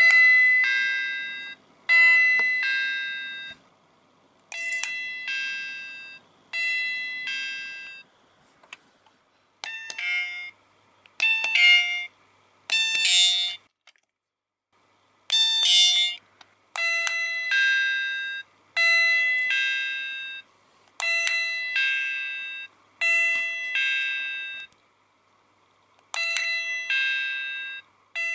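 Miniature toy doorbell buttons pressed again and again, each press playing an electronic two-note ding-dong chime that dies away; about a dozen chimes in a row, with a few shorter, quicker ones around the middle.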